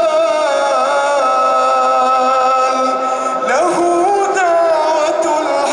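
A man reciting the Quran in a slow, melodic chanting style, holding long drawn-out notes. One phrase ends and the next begins about three and a half seconds in.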